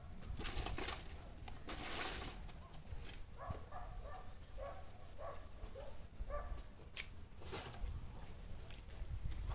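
Firewood being handled and dropped onto a bonfire pile: two short crashing rustles of dry sticks early on, with scattered clicks of wood later. From about three and a half seconds in, a bird calls in a string of short notes for a few seconds.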